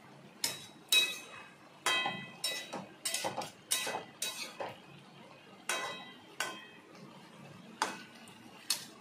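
Metal spatula clinking and knocking against a metal kadai while stirring vegetables: more than a dozen irregular strikes, several of them ringing briefly.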